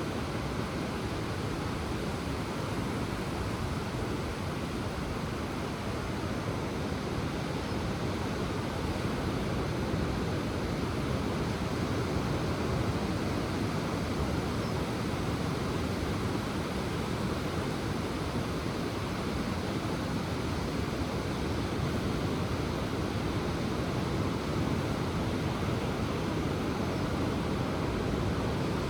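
Ocean surf making a steady, unbroken wash of noise, with no single wave break standing out.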